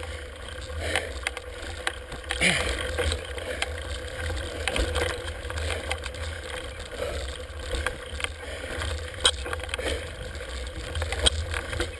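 Mountain bike rolling over bare granite rock, picked up by a handlebar-mounted camera: a steady low rumble of vibration with scattered clicks and rattles from the bike.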